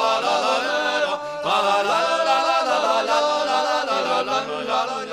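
Voices singing a regional folk song in a southern French dialect, one continuous line with a short breath-break about a second and a half in.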